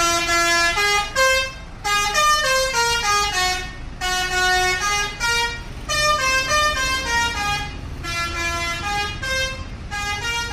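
Bus 'telolet' horn: a multi-note musical horn playing short tunes of quick notes that mostly step down in pitch, each phrase about two seconds long and repeated about five times, starting suddenly. A low rumble runs underneath.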